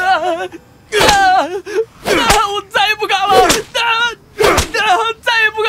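Whip lashes striking a bound man, roughly one a second, each followed by his cries of pain, which waver up and down in pitch.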